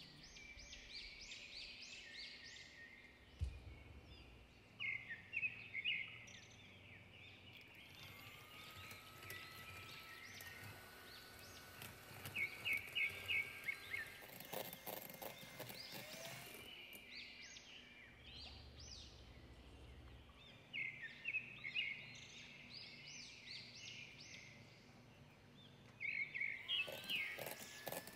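Birds chirping faintly in short, repeated phrases of high notes that recur every few seconds.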